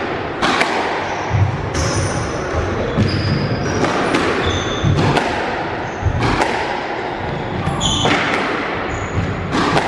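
A squash rally: the ball's sharp strikes off rackets and the walls of the court, about one a second, echoing, with short high squeaks of court shoes on the wooden floor.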